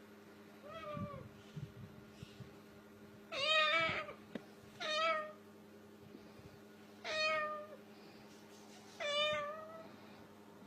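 Five meow calls, each under a second long, spaced about one to two seconds apart; the first is faint and the one about three and a half seconds in is the loudest.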